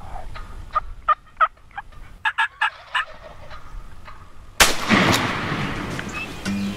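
A string of about ten short wild turkey calls, then a single shotgun blast about four and a half seconds in that rings on as it dies away.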